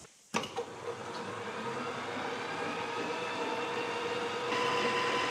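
Boxford lathe running under power, its headstock gears and spindle at top speed (1680 RPM), a steady mechanical run with a gear whine. It gets a little louder about four and a half seconds in.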